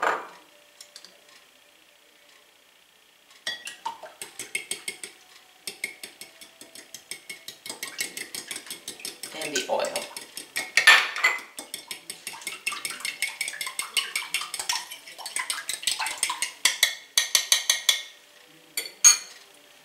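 Fork beating eggs, milk and oil in a glass bowl: a fast run of metal-on-glass clinks, about four or five a second, starting a few seconds in and stopping shortly before the end. A single sharp clink comes at the very start, and a couple of sharp taps follow near the end.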